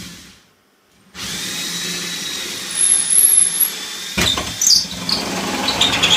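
Ridgid cordless drill spinning an adjustable blade circle cutter into drywall. The motor whirs, stops for a moment, then runs again. A brief high squeal comes near the middle, and from about four seconds in the blades scrape and grind as they score the drywall.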